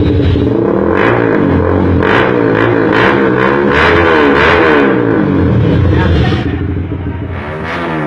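Honda RS150's single-cylinder four-stroke engine running through a VMAX open-pipe exhaust, revved again and again so the pitch climbs and falls with each throttle blip, about once a second.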